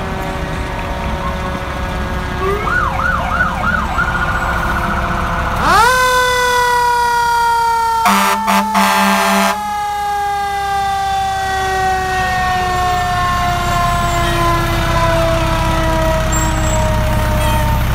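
Quint ladder fire truck's siren winding up sharply about six seconds in, then falling slowly and steadily in pitch for the rest of the time, after a few quick siren chirps. A burst of short air-horn blasts comes about eight seconds in. The truck's engine rumbles louder near the end as it passes close by.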